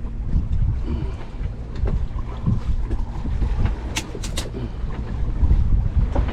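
Low, uneven rumble aboard a fishing boat at sea, with wind buffeting the microphone. Three sharp clicks come in quick succession about four seconds in.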